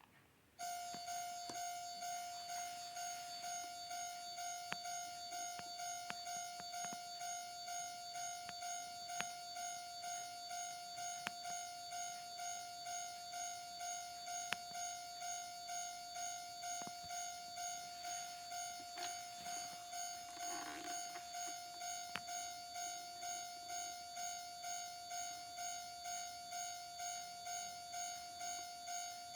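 Electronic railway level-crossing warning bell of an N-gauge model crossing signal, a steady high ringing tone pulsing about twice a second, switched on about half a second in. Faint scattered clicks sound along with it.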